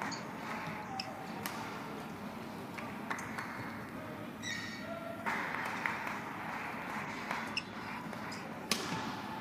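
Badminton rally: sharp racket strikes on the shuttlecock every second or two, with the loudest one near the end. There is a brief shoe squeak on the court about halfway through, over steady hall noise.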